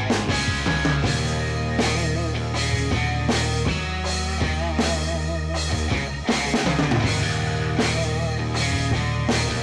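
Rock music with a steady drum beat over a sustained bass line.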